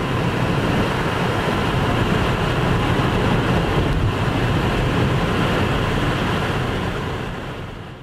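Steady road and wind noise inside a car driving at freeway speed, a deep rumble with hiss, fading out near the end.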